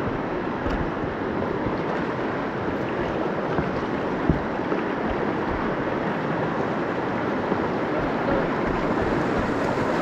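River rapids: a steady, dense rush of white water.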